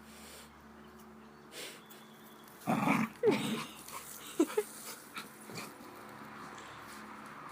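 Border collie puppy making playful growl noises: a short, loud growly grumble about three seconds in, then two brief pitched whines about a second later.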